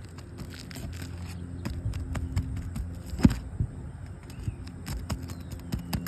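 Asphalt shingles being pried and unsealed from the roof: a run of scrapes and crackling clicks, with one sharp snap about three seconds in, as the sealed 3-tab shingles rip rather than release. A steady low hum runs underneath.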